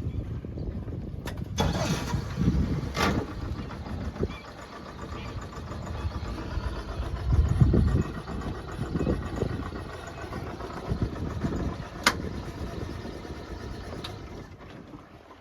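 Boat engine running, with gusts of wind buffeting the microphone and a few sharp knocks, the clearest about twelve seconds in.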